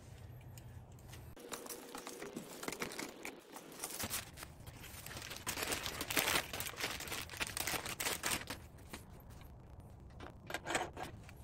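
Plastic packaging crinkling and tearing as a handlebar is unwrapped, with scattered small clicks and knocks of parts; loudest about six seconds in.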